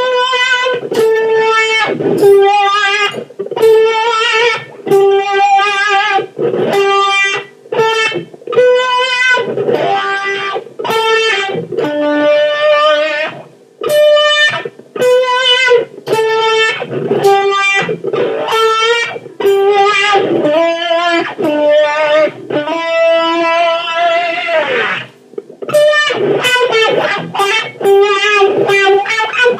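Overdriven electric guitar played through an 18-volt Dunlop 535Q Cry Baby wah pedal fitted with Clarostat pots. It plays short single-note phrases with brief gaps between them, and the tone sweeps up and down as the wah moves.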